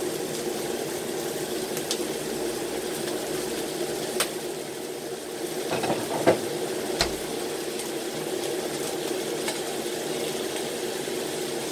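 Pan of chicken wings cooking with a steady sizzle and bubbling over a low hum. A few sharp clicks and knocks come about four, six and seven seconds in, the loudest a little after six seconds.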